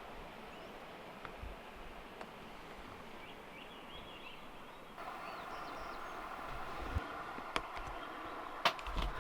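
Steady background ambience with a few faint bird chirps a few seconds in. The background gets louder about five seconds in, and a few sharp clicks come near the end.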